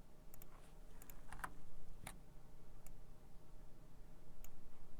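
Irregular clicks and taps from a computer mouse and keyboard being used to edit, with a faint low room hum underneath.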